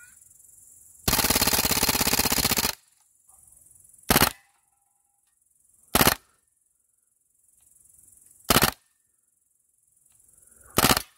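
Crosman AK-1 CO2-powered BB rifle firing on full auto: one long burst of about a second and a half, then four short bursts a couple of seconds apart.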